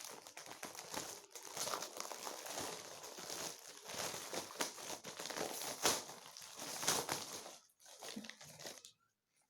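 Packaging crinkling and rustling in irregular bursts as a newly delivered garment is handled and unwrapped, dying away near the end.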